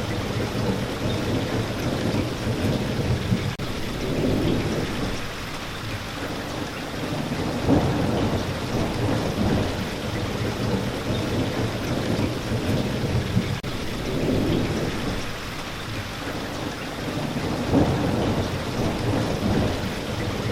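Steady heavy rain falling, with low rolling rumbles of thunder swelling and fading several times.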